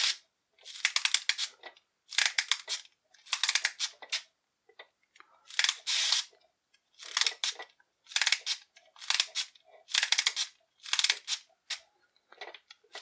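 Plastic wind-up knob on a toy blaster ratcheting as it is twisted, a short burst of rapid clicks about once a second. The blaster has a wind-up motor that is meant to make its barrels pulse in and out.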